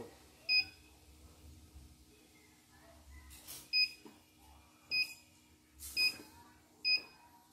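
Control-panel keypad of a CNY embroidery machine beeping as its buttons are pressed: five short, high, clear beeps at uneven intervals, with a faint steady hum beneath.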